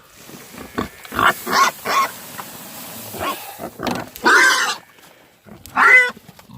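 Pigs squealing and grunting in a string of short calls. Two louder, higher squeals come about four seconds in and near the end.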